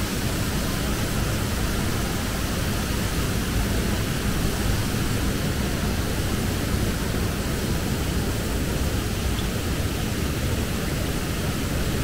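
Canal water pouring over a concrete drop into whitewater below, a steady rushing noise.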